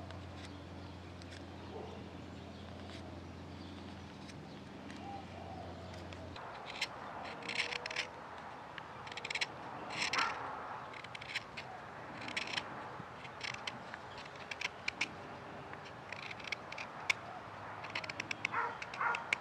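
Sloyd knife slicing shavings from a green alder spatula blank: a series of short, crisp cuts, about one a second, beginning about a third of the way in. Before the cuts, a steady low hum.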